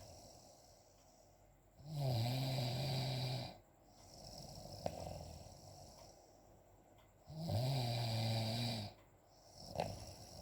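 A person snoring: two long, droning snores about five and a half seconds apart, with quieter breathing between them.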